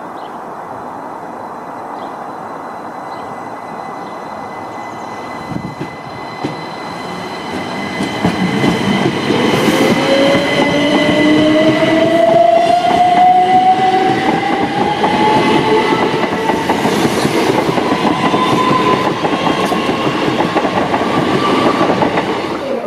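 c2c Class 357 Electrostar electric multiple unit pulling away and accelerating across a level crossing: its traction motor whine rises steadily in pitch as it speeds up, over the clatter of wheels on rails. A steady high tone sounds through the first part and stops.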